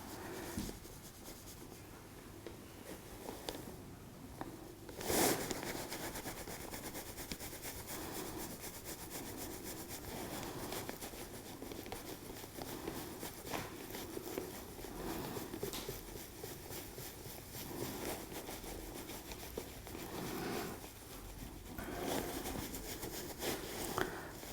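Quiet rubbing and shifting of hands and fabric as an osteopath works on a patient on the treatment table, with one sudden sharp sound about five seconds in.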